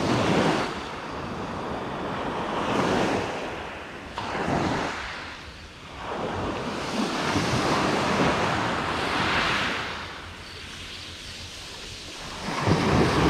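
Sea waves washing onto the shore, the rush rising and falling in several swells a few seconds apart.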